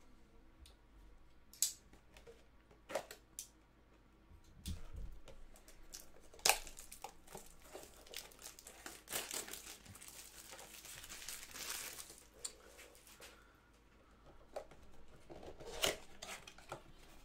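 Cellophane wrapping crinkling and tearing as a trading-card box and its packs are unwrapped by hand, with scattered light clicks and cardboard being handled.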